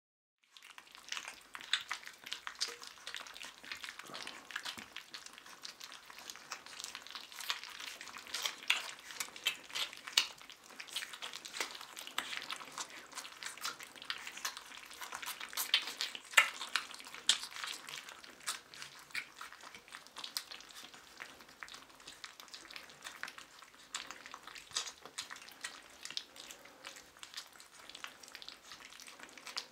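Month-old Cane Corso puppies eating minced raw meat from a stainless steel feeding pan: a dense, irregular run of wet smacking and clicking from their mouths in the meat, starting about half a second in.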